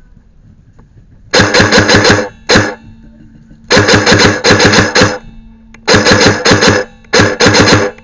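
Airsoft gun firing in several short full-auto bursts of rapid shots, each burst with the whir of its mechanism, the first starting about a second and a half in.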